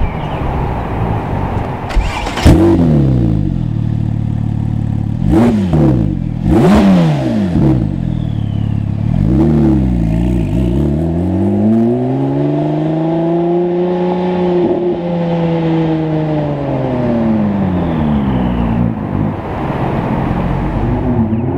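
Porsche 997 GT2 RS twin-turbo flat-six idling and being blipped. There are several quick revs that rise and drop sharply, then one slower, longer run up in revs that falls back, and another short blip near the end.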